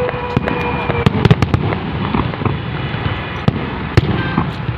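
Fireworks display: aerial shells bursting with many sharp bangs and crackles over a continuous low rumble. The bangs come thickest about a second in and again around four seconds. A steady held tone sounds through the first second, then stops.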